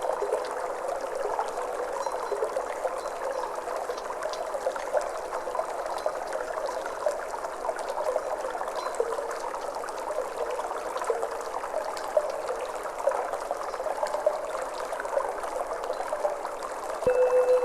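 Flowing, trickling water, steady throughout. The ring of a Tibetan singing bowl dies away at the start, and near the end the bowl is struck again and rings with a clear steady tone.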